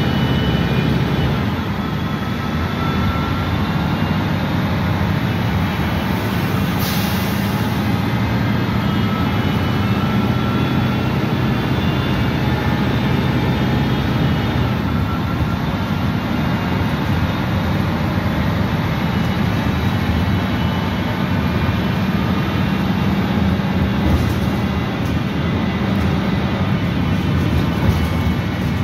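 Detroit Diesel Series 50 inline-four diesel and Voith automatic transmission of a 1989 Gillig Phantom transit bus running steadily under way, heard inside the cabin near the rear, with a low rumble. A brief hiss about seven seconds in.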